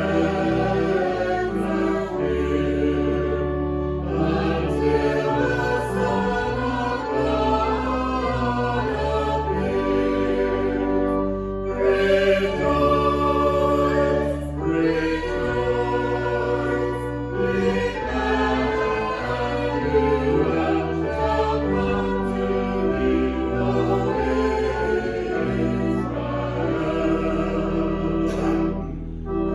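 Worship music: a choir singing in parts over sustained low instrumental bass notes, the chords changing every second or two.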